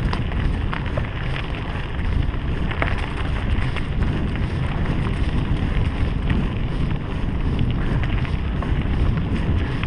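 Wind buffeting the microphone of a GoPro action camera on a moving mountain bike, a steady low rumble, with tyre noise on a dirt and gravel track and scattered short clicks and rattles from the bike.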